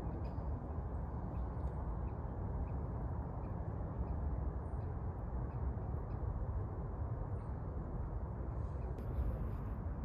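Steady low outdoor rumble, such as wind on the microphone or distant traffic, with a few faint high chirps now and then.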